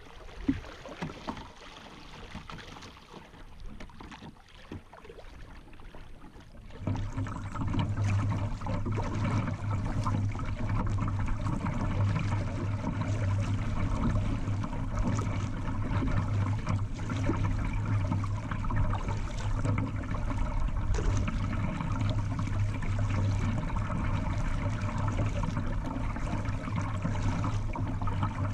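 Water sounds of a kayak gliding down a small river. For the first several seconds there are scattered light splashes and drips. About seven seconds in the sound switches suddenly to a louder, steady rush of water with a constant low hum.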